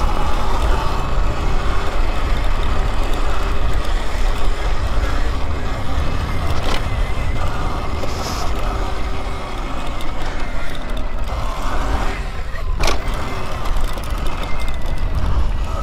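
Wind rushing over a helmet-mounted microphone while riding an electric dirt bike across loose dirt, with a faint steady motor whine and tyre noise underneath. Two sharp knocks, about 7 and 13 seconds in, as the bike hits bumps.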